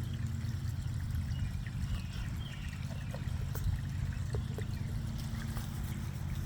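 Pond water trickling and splashing, with scattered small drips and splashes over a steady low rumble.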